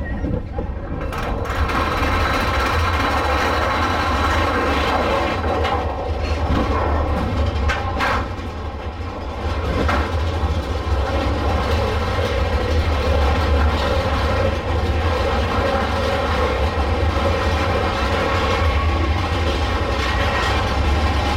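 Mine-train roller coaster cars running along the track, a steady loud rumble of wheels with clatter, and a brief sharp clank about eight seconds in.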